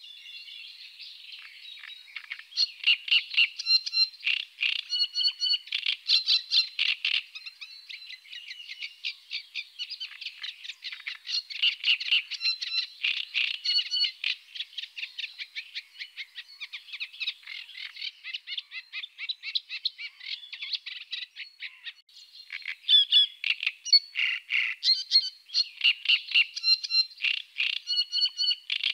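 Great reed warbler singing: a long, rapid run of repeated grating, chattering notes in phrases that follow each other almost without pause, quieter in the middle and loudest a few seconds in and again near the end.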